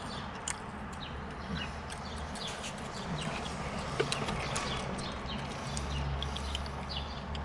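Small birds chirping in many short, quick calls over a low steady hum.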